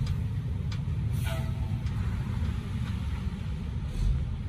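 Dump truck's diesel engine running with a steady low rumble while its raised bed tips out a load of red sand clay, with a low thud near the end.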